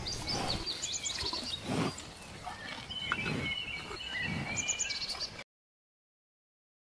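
Outdoor nature ambience of birds chirping and whistling over a faint background, with two short low sounds, cutting off abruptly to silence about five seconds in.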